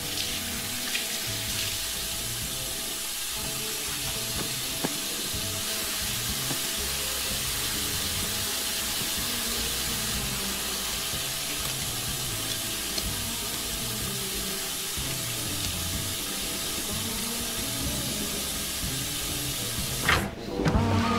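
Tap water running steadily into a bathroom sink as hands are washed under it, over a low, quiet music score. Near the end the water gives way to louder, sharper sounds.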